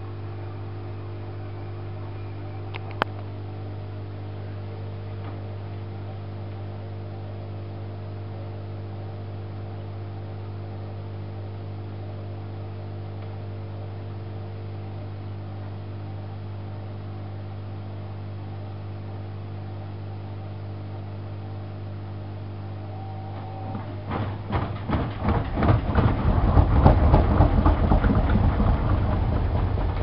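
AEG ÖKO-Lavamat 8650 washing machine draining: a steady mains hum from the drain pump, with a single click a few seconds in. About 24 seconds in it turns to a much louder, irregular gurgling rattle as the pump starts drawing air with the water.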